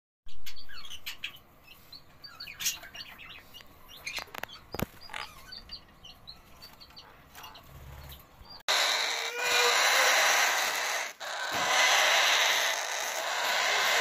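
Faint, short, high chirps from a sun conure nest box holding a newly hatched chick. About nine seconds in, a sudden change to a much louder, steady, harsh raspy hiss of a clutch of Indian ringneck parakeet chicks begging.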